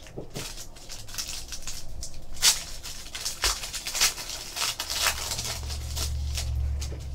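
Foil wrapper of a Panini Diamond Kings trading-card pack crinkling and tearing as it is handled and opened, a run of sharp crackles, with a low rumble underneath in the last couple of seconds.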